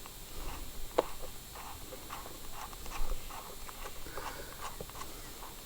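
Cockatoos calling in short, repeated squawks, with a sharp click about a second in.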